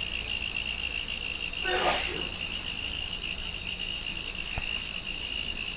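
Insects trilling steadily at two high pitches without a break. A brief, louder sound cuts in about two seconds in.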